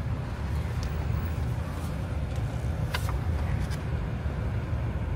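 Car driving, heard from inside the cabin: a steady low rumble of engine and tyres, with a few short clicks, the sharpest about three seconds in.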